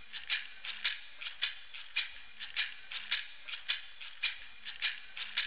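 A rattle shaken in a steady rhythm: a strong dry stroke about twice a second with lighter strokes between.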